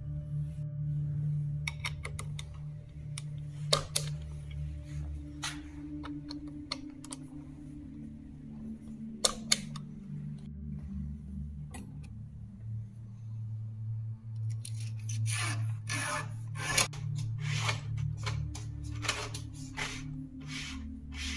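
Background music of slow, sustained low tones. Over it come scattered sharp clicks and a run of quick scraping strokes about fifteen to seventeen seconds in, from mountain-bike parts and hand tools being handled.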